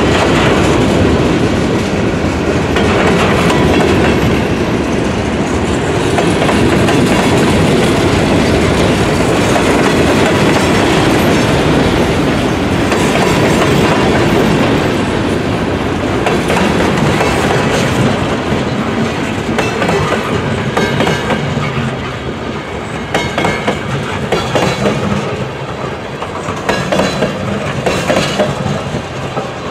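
Freight cars of a long CN mixed-freight train rolling past: a steady rumble of steel wheels on rail with clickety-clack over the rail joints. The clacking becomes more distinct and uneven near the end.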